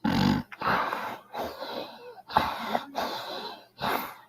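A woman snoring in her sleep: about four noisy breaths with short gaps between them.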